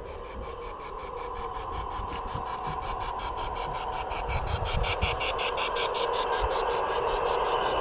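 LGB G-scale model trains running on garden track: electric motor hum that grows louder as they approach, with a rapid, even ticking of about six a second, loudest about halfway through.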